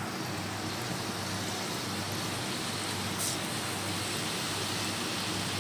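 Bhatura dough deep-frying in a pan of hot oil: a steady sizzle as the bread puffs up.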